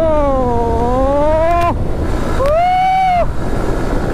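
Yamaha motorcycle riding along at speed, its engine and the rushing wind on the microphone making a steady rumble. Over it come two short pitched tones that glide in pitch: the first dips and climbs again over more than a second, the second rises, holds and falls near the middle.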